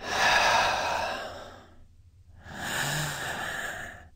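A man taking slow, deliberate deep breaths: one long, noisy breath, then after a pause of about half a second another, with a brief voiced sigh in it.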